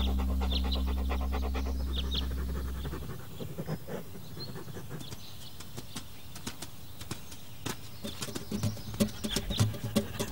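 A music bed fades out over the first three seconds. What follows is quiet ambience with a few small bird chirps and many light ticks and scuffs, like a small dog's paws on the ground, which grow busier and lower near the end.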